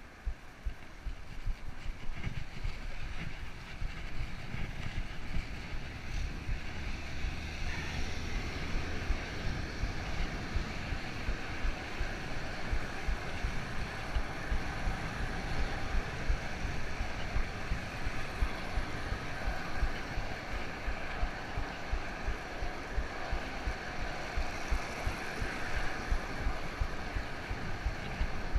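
Wind buffeting the microphone of a body-worn camera, with road noise, as a cyclocross bicycle is ridden along a city street; it swells within the first couple of seconds as the bike gets moving from a stop.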